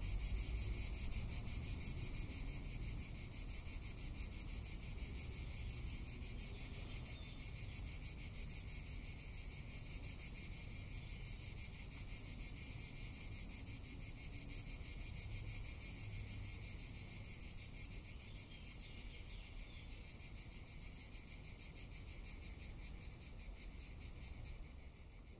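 Cicadas singing: a steady, rapidly pulsing high-pitched buzz that thins out near the end, over a low rumble.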